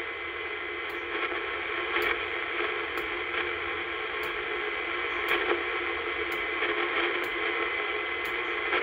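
1970s Royce CB radio receiver hissing with static through its speaker, the squelch fully open and no signal coming in. A short click sounds about once a second, the channel selector stepping from channel to channel.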